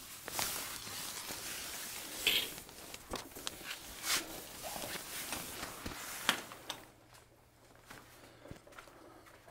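Rustling and crinkling of a camouflage pop-up hunting ground blind's fabric as it is pushed and folded down, with a few sharper snaps and knocks along the way; the handling noise drops away after about seven seconds.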